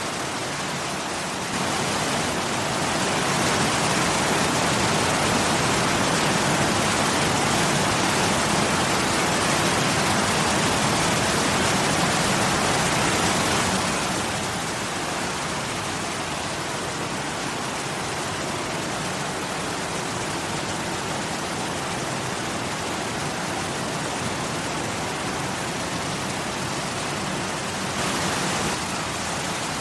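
Waterfall: water falling and rushing in a steady hiss. It grows louder a couple of seconds in, softens again about halfway through, and swells briefly near the end.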